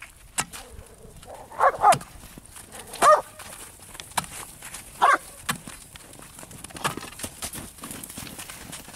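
A dog barking: a double bark, then two single barks about a second and a half to two seconds apart. Between them come sharp knocks of an iron breaker bar chipping at pond ice.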